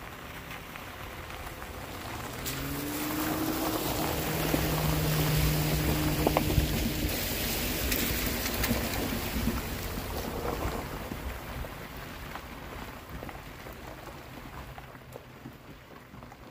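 Rain falling, with a motor vehicle passing on a wet road: its hum and tyre hiss swell over a few seconds and then fade away.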